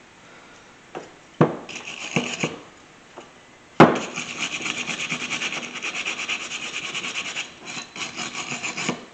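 A flat metal blade scraping rapidly back and forth along a steel clutch lever, rubbing off rust residue loosened by an electrolysis bath. A few light clicks and one sharp knock come as the tool meets the part, and then the quick, even scraping runs for most of the rest, pausing briefly once.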